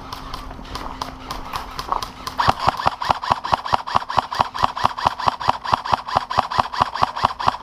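Airsoft gun firing full auto, a fast, even stream of sharp shots at about five a second, starting a couple of seconds in.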